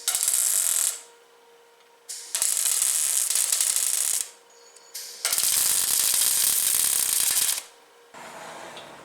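Welding in three short bursts: one of under a second, then two of about two seconds each, each starting and stopping sharply with quiet between.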